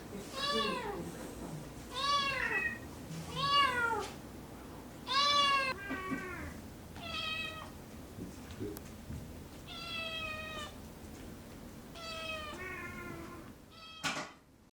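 A cat meowing over and over, about eight separate meows: the first four rise and fall in pitch, the later ones are flatter and drawn out. A sharp click comes near the end, and then the sound cuts off.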